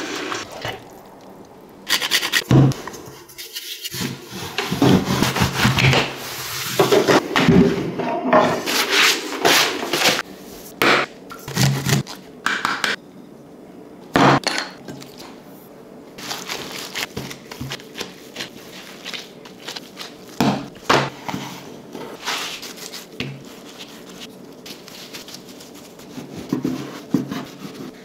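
A run of food-preparation sounds: utensils scraping and knocking on a pan, bowls and a wooden board, with many short sharp knocks between stretches of scraping.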